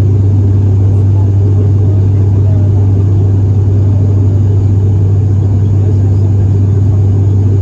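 Steady cabin drone of an ATR 72-600's twin PW127 turboprops in flight: a constant low propeller hum over a rumbling roar that holds one pitch throughout.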